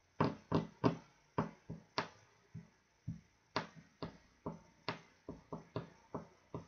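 A run of light, sharp taps at an uneven pace of about three a second, each dying away quickly. They are a little louder in the first two seconds.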